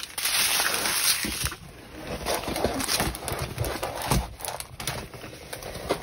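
Plastic film and bags of drills crinkling and rustling as a diamond painting canvas is moved and laid flat. The crinkling is loudest in the first second and a half, then goes on as scattered crackles and soft taps.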